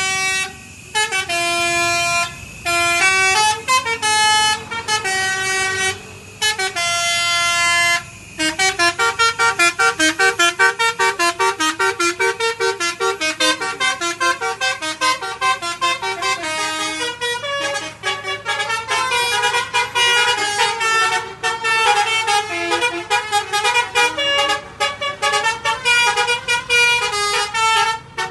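Bus 'basuri' telolet musical horn playing a tune: several long held notes, then a quick run of short notes from about eight seconds in.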